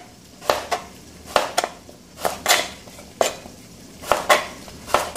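Kitchen knife slicing carrot into thin slices, each cut ending in a sharp tap of the blade on the cutting board, about two cuts a second and often in close pairs.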